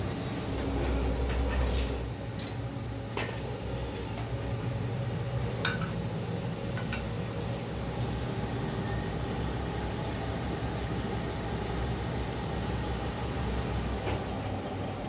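Steady low hum of a plate-moulding press and its motor running in a small workshop. Scattered clicks and knocks from handling moulds and plates sound over it, with a short hiss about two seconds in.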